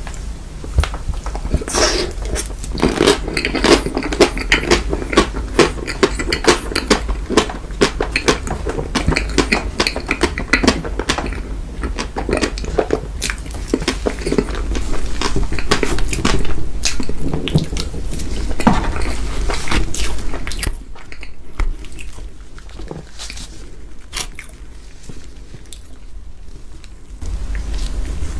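Close-miked eating of chocolate cake: a fork or spoon clinks and scrapes on the plate among bites and chewing, with many quick clicks. It quietens for several seconds near the end.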